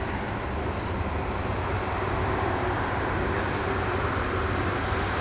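Airbus A330 tanker's two Rolls-Royce Trent turbofans running at taxi thrust as it lines up on the runway. It is a steady rushing jet noise over a low hum, growing slightly louder about two seconds in.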